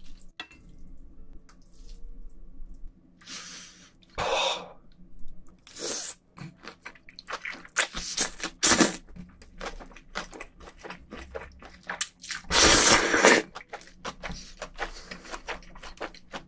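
Close-miked eating of cold buckwheat noodles with marinated pork rib and radish: several long wet slurps of noodles, the longest near the end, between steady chewing with wet clicks and crunching.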